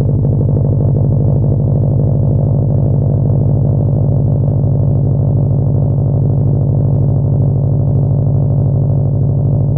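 Subaru WRX STI's turbocharged boxer four-cylinder idling steadily through an aftermarket exhaust, a deep, even pulsing drone.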